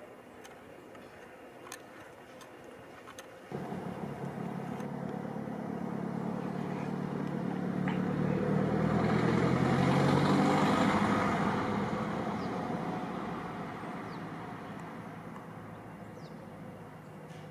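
A motor vehicle's engine passing by: it comes in abruptly a few seconds in, grows louder to a peak about ten seconds in, then slowly fades away.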